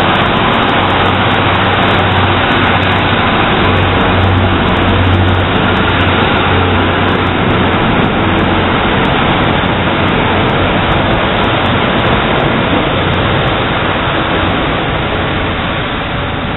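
Class 150 Sprinter diesel multiple unit pulling out and passing close by: a low engine drone, strongest in the first few seconds, over steady wheel and rail noise, fading near the end as the train moves away.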